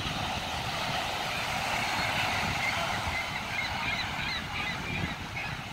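Sea surf washing onto a beach, with wind on the microphone, and a jumble of short, high cries over it, thickest in the middle.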